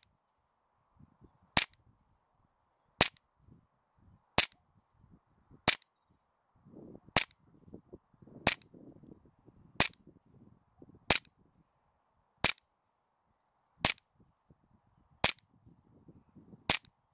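Umarex Smith & Wesson M&P40 CO2 blowback BB pistol firing a steady string of twelve sharp shots, about one every 1.4 seconds.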